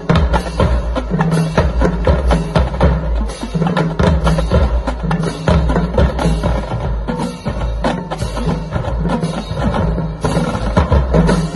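Marching drumline playing a fast cadence: rapid snare drum strokes over a steady bass drum pulse.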